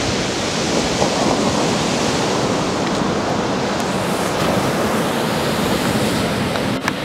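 Ocean surf breaking and washing in as a steady rushing noise, with some wind on the microphone.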